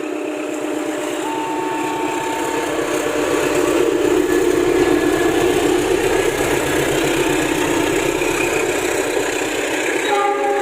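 Indonesian diesel train passing close by, its engine and running noise building to a steady loud rumble. Near the end the locomotive horn sounds again, a multi-note chord.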